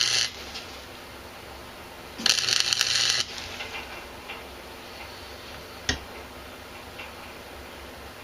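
Arc welder laying short tack welds on horseshoe steel. A crackling burst ends just after the start, another about two seconds in lasts about a second, and a single sharp click comes near six seconds.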